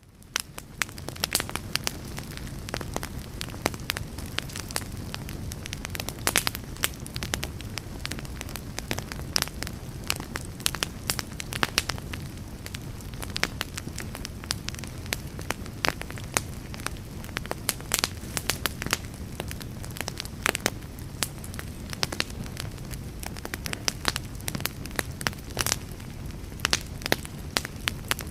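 Campfire burning and crackling, with a steady low rumble and hiss under frequent sharp pops and snaps. It fades in over the first second.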